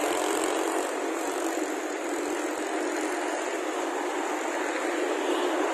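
Busy city road traffic: a steady rush of cars passing on a multi-lane road.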